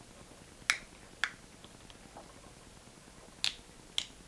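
Four light, sharp clicks and taps of a small screwdriver and parts inside an opened avionics radio, two in the first second and a half and two more near the end, with a few fainter ones between, as a replacement lithium memory battery is tried in its compartment.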